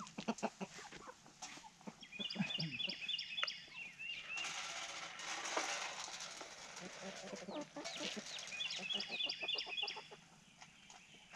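Backyard laying hens clucking, with scattered knocks and rustling. Twice comes a quick run of short high chirps.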